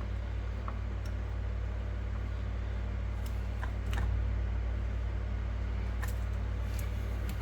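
A steady low machine hum, with a few faint metallic clicks of a hand tool as a grease fitting is tightened into a ball joint.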